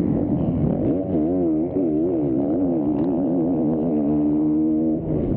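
Motocross bike engine revving hard, its pitch climbing and dropping again and again through gear changes, then holding a steady high pitch for about a second before dropping near the end.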